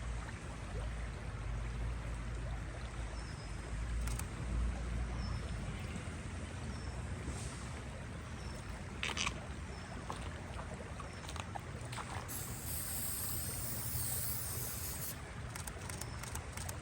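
Outdoor nature ambience: a steady rushing background with some low rumble in the first few seconds, and a small bird's short, high chirp repeated about once a second for several seconds. A few sharp clicks and about three seconds of high hiss come later.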